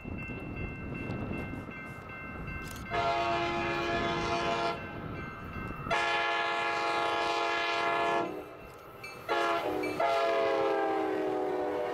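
Sounder commuter train's horn sounding the grade-crossing signal: two long blasts, a short one, then a final long blast, over the rumble of the approaching train. The pitch of the last blast drops as the train passes.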